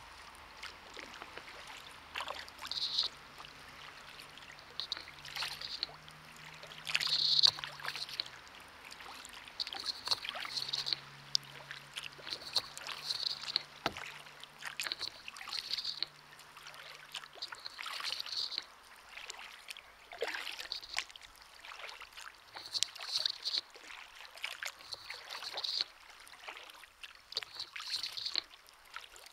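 Kayak paddle strokes: the blades dipping and pulling through calm river water at a steady, unhurried pace, alternating sides about every one to two seconds, with water dripping off the blades between strokes.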